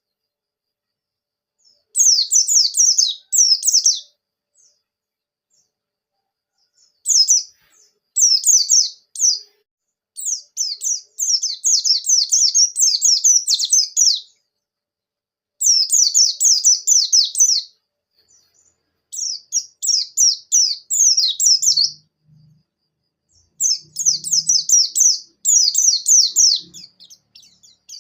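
White-eye (pleci) singing: fast, high twittering song phrases of a few seconds each, about six bursts separated by short pauses.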